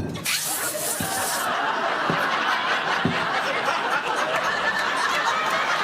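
A short aerosol-spray hiss of about a second, a live Foley effect standing in for a blast of mace, then a studio audience laughing.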